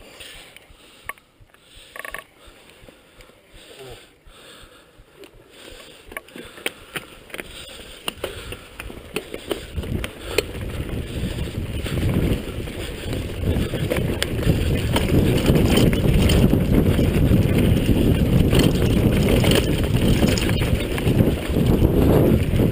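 Mountain bike riding down a dirt forest trail: at first fairly quiet with scattered clicks and knocks, then from about ten seconds in a rough rumble of tyres over the dirt and wind on the microphone builds and stays loud as speed picks up.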